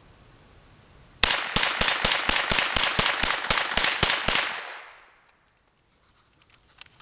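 ISSC MK22 semi-automatic .22 LR rifle firing CCI Mini-Mag rounds in rapid fire, about twenty shots at roughly six a second. The shots stop suddenly, with an echo dying away: the rifle has had a feed stoppage, a round not rising fully in the magazine lips.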